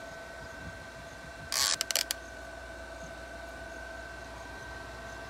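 A motorcycle-style helmet being pulled onto a head: a short scraping rustle, then three or four sharp clicks, over a steady faint two-tone whine.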